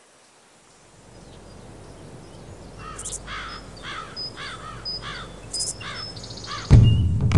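A bird calls in a run of about six repeated calls, over a faint steady outdoor background. About 6.7 seconds in, a potato cannon fires with a sudden loud boom.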